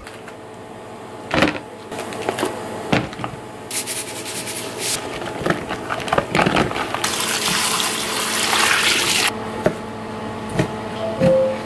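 Tap water running into a sink in two spells while boiled bamboo shoots are handled in a pot, with clunks and knocks of the wet shoots against the pot, over a steady hum. Near the end, a kitchen knife cuts down through a peeled bamboo shoot onto a plastic cutting board.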